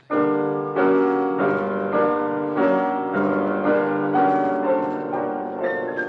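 Orchestral-style music bridge marking a scene change in an old-time radio drama, played as sustained chords on a keyboard instrument that move to a new chord about every half second and grow gradually softer.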